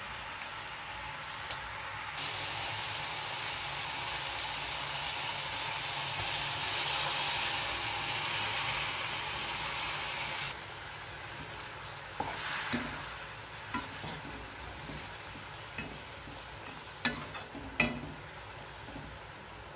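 Eggplant curry sizzling in a metal kadai, a steady hiss that drops away suddenly about halfway through. Then a steel ladle stirs it, knocking and scraping against the pan several times.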